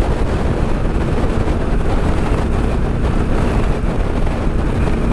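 KTM 890 SMT parallel-twin engine running at a steady road speed through an aftermarket Vandemon titanium exhaust, a well-rounded note that is not obnoxious and has no drone to it. Heavy wind rush over the microphone sits under the engine.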